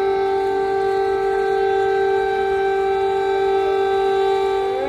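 Civil-defence air-raid siren holding a loud, steady tone, its pitch dipping just at the end. It is sounding an air-raid alert.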